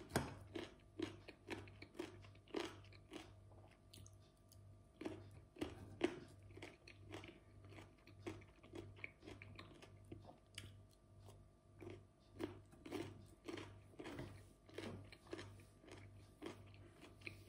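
A person chewing slices of raw cucumber with the mouth close to the microphone, a steady run of short, crisp crunches, about two or three a second.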